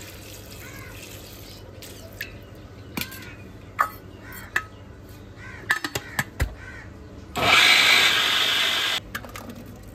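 Steel jar and lid clinking and knocking as chopped garlic, ginger and onion are loaded. Then, about seven seconds in, an electric mixer grinder runs in one short pulse of about a second and a half, grinding them toward a paste, and cuts off sharply.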